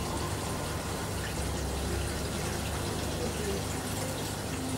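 A steady rushing noise with a heavy low rumble, with faint voices of people talking in the background.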